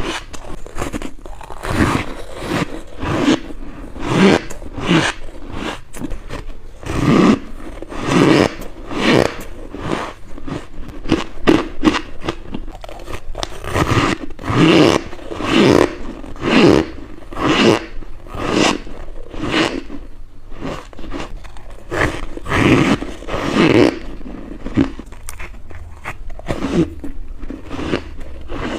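Close-miked biting and crunching of freezer frost, one crisp bite after another about once or twice a second, with louder bites in the middle and again near the end.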